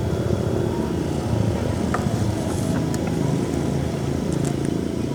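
A motor vehicle engine running steadily, its pitch wavering slightly.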